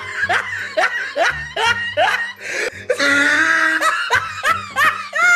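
Laughter in a quick run of short bursts, over a backing music track.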